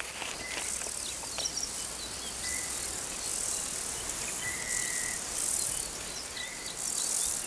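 Chorus of calling insects: high buzzing trills that swell and fade every second or so, with a short, steady, high piping note repeated a few times.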